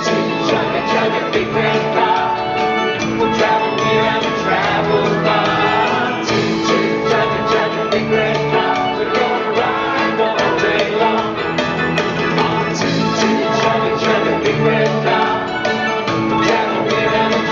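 A live band plays a children's pop song, with a man singing over drums and electric guitar, filling a theatre.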